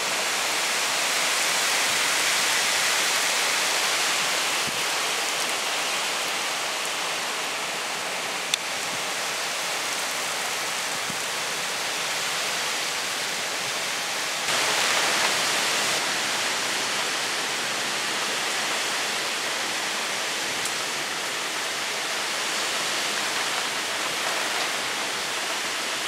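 Heavy thunderstorm downpour, a dense steady hiss of rain with wind driving it through the trees. It turns louder suddenly about halfway through.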